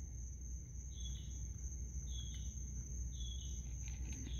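Night insects calling: a steady high-pitched trill, with a shorter chirp repeating about once a second, over a low steady hum.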